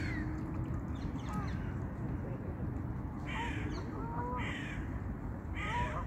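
Birds calling: three harsh, caw-like calls about a second apart in the second half, with softer chirps in between, over a steady low rumble.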